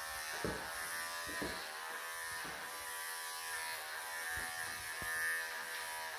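Electric pet clippers running with a steady buzz as they shave long fur from a cat's body, with a few soft knocks underneath.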